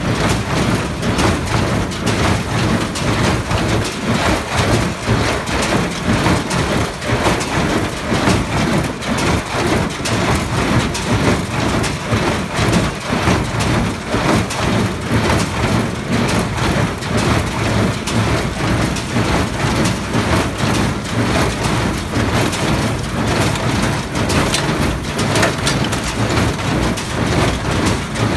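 New Holland small square baler running while baling hay: a loud, steady mechanical clatter of the plunger, pickup and knotter drive, with a tractor engine running underneath.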